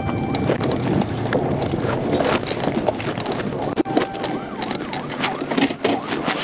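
Police car siren wailing over the noise of a moving vehicle, with many sharp clicks and knocks mixed in.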